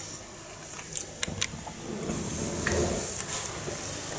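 Handling noise: a few sharp clicks about a second in, then a longer rustling, shuffling sound as things are moved about.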